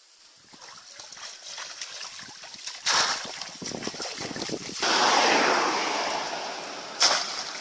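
Water splashing and sloshing: a sudden splash about three seconds in, a longer rush of water from about five seconds that slowly dies away, and another sharp splash near the end.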